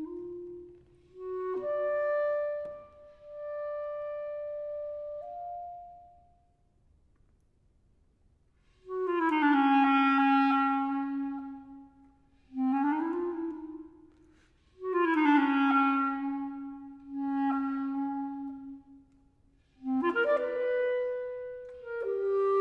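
Unaccompanied clarinet playing slow phrases of long held notes, with a pause of about three seconds near the middle. After the pause come louder swelling notes, some of them bending in pitch.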